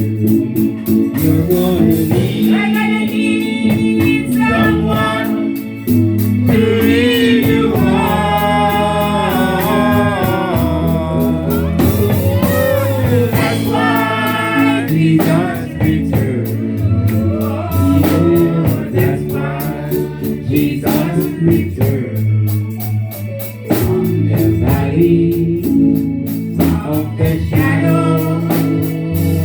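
Gospel music: singing over a band with bass and a steady drum beat.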